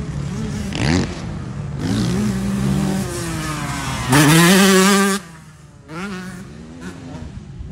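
Motocross dirt bikes racing on the track, their engines revving up and down through the gears. About four seconds in, one bike revs hard and loud for about a second, then its sound drops away sharply.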